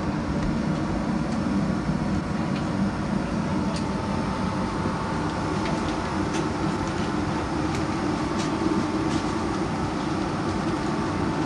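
Steady cabin hum of a parked Boeing 727 during boarding, a low rumble with a faint steady high tone, with scattered sharp clicks and knocks from overhead bins and seats and faint passenger chatter.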